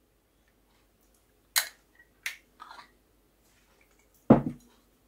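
A metal spoon clinks lightly against the sauce container three times as tomato sauce is scooped out. About four seconds in there is one heavier knock, the loudest sound.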